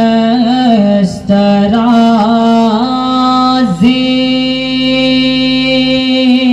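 A man's solo voice singing a naat into a microphone, in a chant-like style. He sings quick wavering ornamental turns, then holds one long steady note from about four seconds in.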